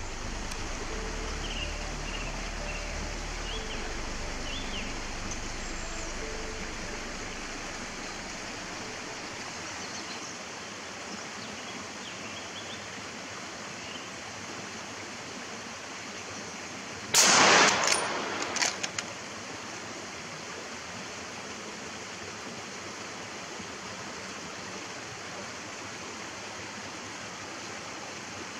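Steady outdoor background hiss with a few faint bird chirps, while soft music fades out over the first several seconds. About seventeen seconds in comes one loud, sudden burst lasting about half a second, followed by a few smaller knocks.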